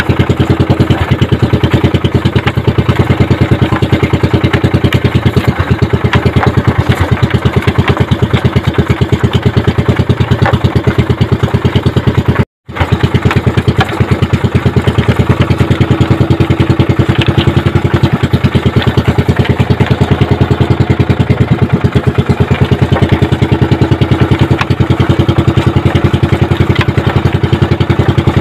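Small engine of an outrigger fishing boat running steadily, a fast, even putter, with a brief total dropout about twelve seconds in.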